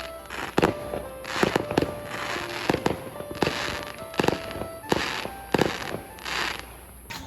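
Fireworks bursting in quick succession: sharp bangs roughly every half second to second, many followed by a crackling hiss.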